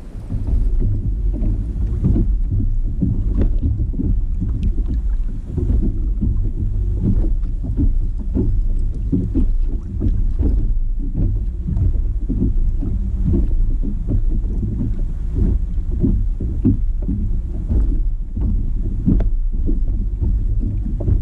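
Lake water slapping and splashing against the hull of a kayak on choppy water, with many short slaps over a steady low rumble of wind on the microphone.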